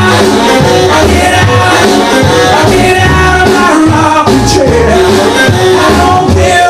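A rock and roll record playing, with a steady bass beat and singing.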